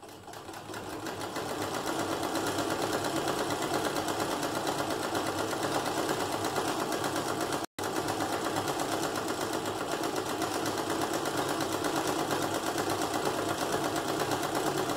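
Antique Free treadle sewing machine running at high speed, freshly oiled so the oil works through the mechanism: a fast, even, rapid clatter that builds over the first couple of seconds and then holds steady, with a brief dropout about halfway through.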